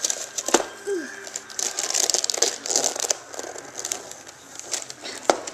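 Gift wrapping paper crinkling and rustling as a small child's hands tug at it to open a present, with a sharp crackle about half a second in and another near the end.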